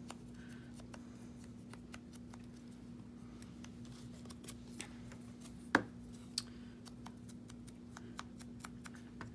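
Small clicks and paper handling from working a rubber date stamp and small paper tags, with one sharp tap a little past halfway. A steady low hum sits underneath.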